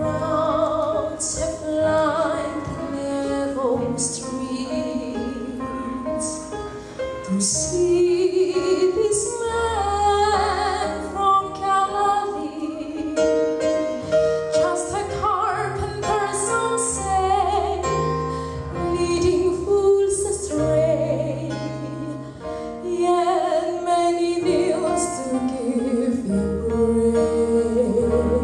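A young woman sings a solo melody into a microphone, backed by a live keyboard and band accompaniment with sustained bass notes.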